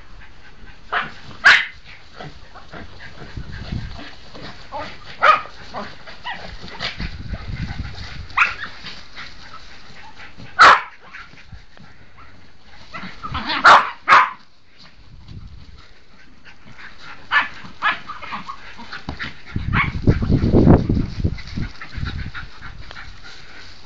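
Jack Russell terriers barking and yipping in scattered short, sharp bursts, excited at a rat hidden in the straw bales. A louder stretch of scuffling and rustling in the straw comes near the end.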